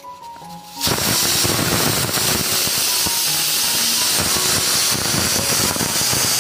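Aluminium pressure cooker letting steam out under its weight valve: a loud, steady hiss that starts about a second in, the sign that the cooker has come up to pressure.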